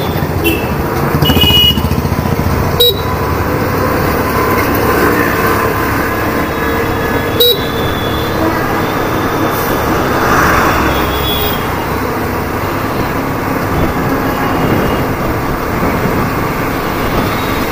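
Hero Destini 125 FI scooter's single-cylinder engine running steadily while riding in city traffic, mixed with road and wind noise. Short horn toots sound around 1–2 s in and again near 11 s, and two sharp clicks come at about 3 s and 7.5 s.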